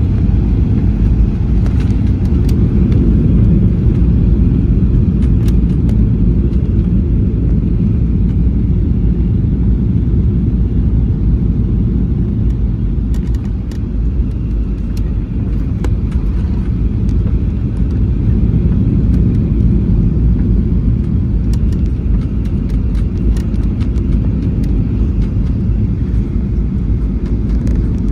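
Steady low rumble of an airliner heard from inside the passenger cabin, with faint scattered clicks and rattles of the cabin fittings.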